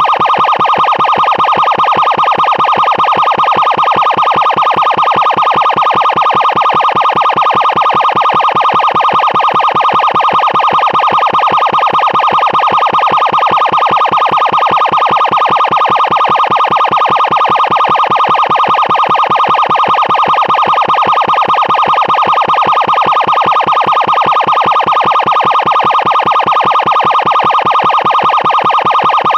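Emergency siren sounding very loud as one steady high tone that pulses rapidly, several pulses a second, without rising or falling in pitch and without a break.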